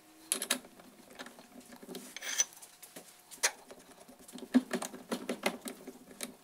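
Irregular light clicks and taps of metal parts being handled on a lathe's milling attachment and vise setup.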